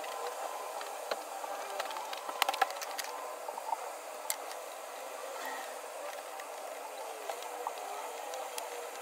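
A few light clicks and taps as a metal door-frame keep is handled and offered up to the frame, over a steady background hiss.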